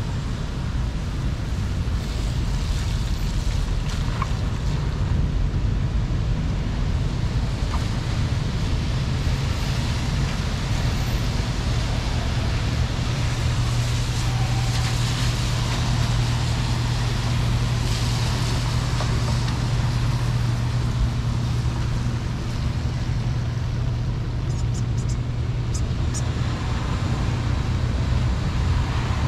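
Steady rumble of road traffic in the rain, with a constant hiss of water and wet road over it. A low engine hum holds steady through the middle stretch.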